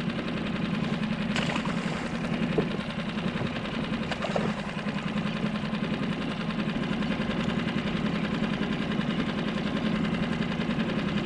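Mercury 6 hp outboard motor running steadily at low speed, with a few faint ticks over it in the first few seconds.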